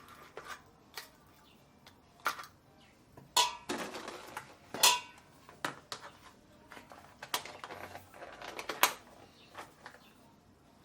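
Kitchen clatter of dishes, pots and utensils: a string of irregular sharp clinks and knocks, a few of them ringing briefly, the loudest about three and a half and five seconds in.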